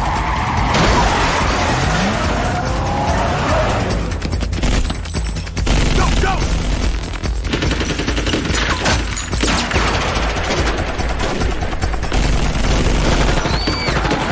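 Film action soundtrack: repeated bursts of rapid automatic rifle fire over a steady dramatic music score.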